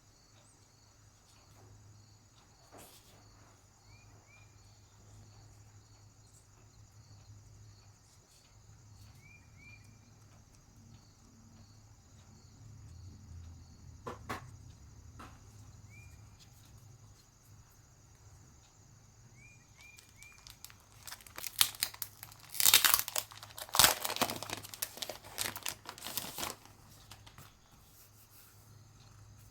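Plastic packaging crinkling and tearing loudly for about five seconds near the end, as a parcel of journaling supplies is unwrapped. Before that, faint room tone with a low hum and a few short high chirps.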